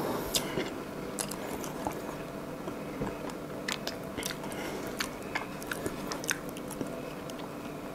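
A person chewing a mouthful of soft cream-cheese cheesecake close to the microphone, with many scattered small wet clicks and smacks, over a steady faint hum.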